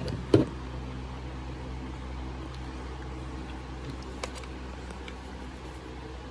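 Steady low machine hum, such as a fan or ventilation unit running, with a short thump about half a second in and a faint click about four seconds in.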